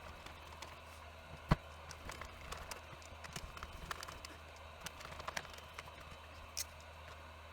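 Scattered light clicks and taps of hard plastic tool housing and parts being handled and fitted together during reassembly, with one sharper knock about one and a half seconds in.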